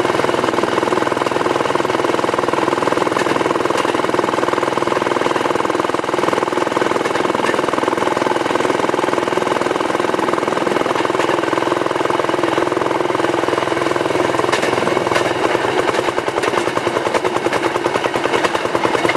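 Engine of a rail section car (speeder) running steadily with a rapid pulsing beat as it travels along the track. The pulsing becomes more distinct in the last few seconds.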